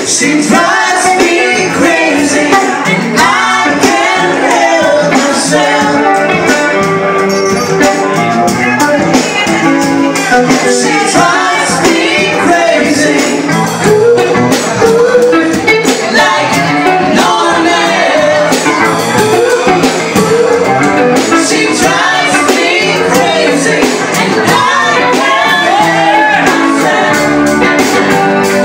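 A live band playing a song with singing and electric guitar, loud and steady throughout, picked up by a phone microphone.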